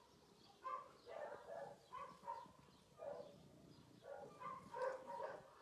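Faint barking of distant dogs: short barks in irregular runs, a little busier near the end.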